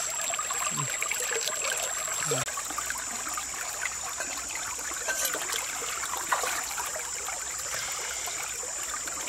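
Stream water running steadily.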